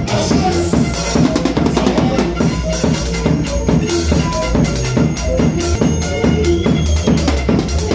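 Live band playing an instrumental passage: a drum kit beats out a quick, busy rhythm of bass drum and snare over a bass guitar line, with no singing.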